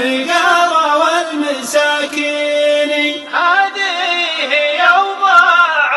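Male voice chanting a shilah, a Gulf Arabic sung poem, in a drawn-out, ornamented melody; one note is held for about a second in the middle before a new phrase begins.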